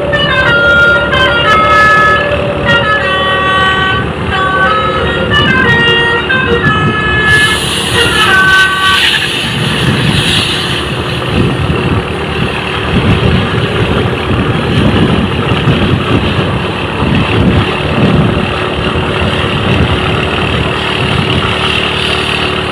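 Bus 'telolet basuri' multi-tone horn playing a tune of short stepping notes for about nine seconds. After that the horn stops, and a heavy bus engine and road noise go on as a steady low rumble.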